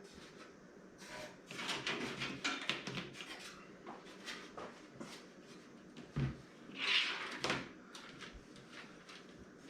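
Hands handling computer parts during assembly: scattered clicks, taps and rustling of plastic and metal pieces, with a louder rustle or scrape about seven seconds in.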